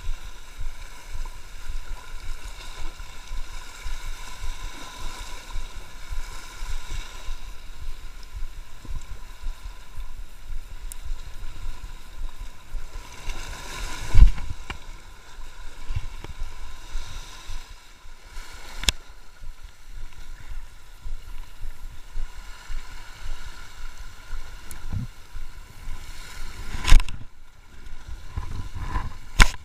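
Choppy sea water washing against rocks, with wind buffeting the microphone, over a faint steady drone. A few sharp knocks stand out; the loudest come about 14 seconds in and about 27 seconds in.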